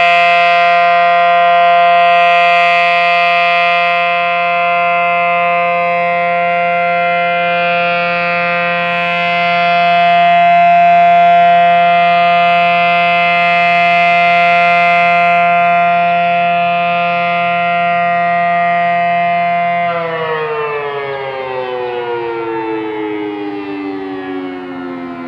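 Federal Signal SD-10 outdoor warning siren sounding the steady Alert signal: a loud, steady tone that slowly swells and fades. About 20 seconds in it shuts off and winds down, its pitch falling steadily as the rotor slows.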